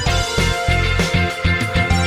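Background music: an upbeat instrumental with guitar, bass and a steady beat.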